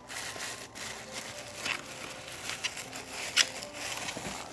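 Tissue paper and clear plastic wrapping rustling and crinkling as a wrapped candle is pulled out and unwrapped by hand, with a sharper crinkle about three and a half seconds in.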